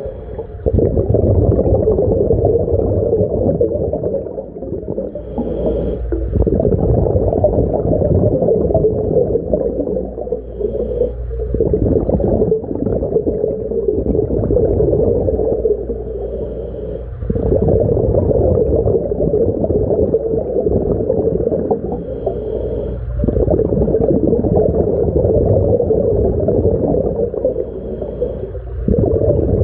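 Underwater breathing through a portable mini scuba tank's regulator, in a regular cycle about every six seconds: long stretches of bubbling, rumbling noise, each broken by a brief pause that carries a faint high hiss.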